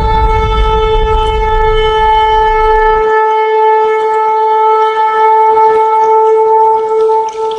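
One long horn blast held steady at a single pitch, loud, with a deep rumble beneath it that cuts off about three seconds in; the blast fades out near the end.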